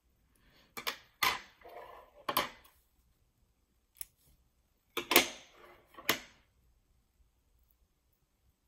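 Steel suture instruments clicking and clacking: suture scissors and a needle driver handled and set down on a wooden table. There are sharp clicks in two short clusters, with a single click between them.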